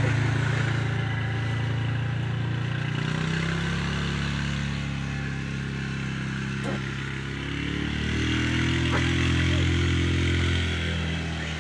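ATV engine running as it tows a rider on a cart, its pitch rising about three seconds in and again near eight seconds, then dropping back near the end.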